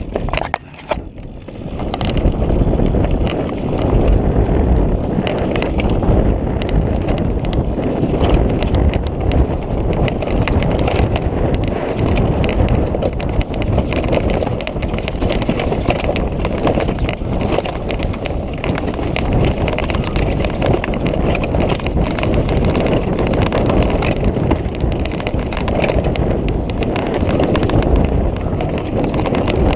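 Orbea mountain bike descending fast on a dry, leaf-covered, rocky trail: a steady rush of tyres through leaf litter and dirt, with constant clattering and rattling from the bike over roots and rocks. It picks up and gets louder about two seconds in.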